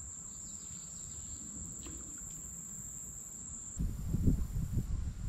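Steady high-pitched drone of insects singing. About four seconds in, wind gusts start buffeting the microphone in low, uneven rumbles.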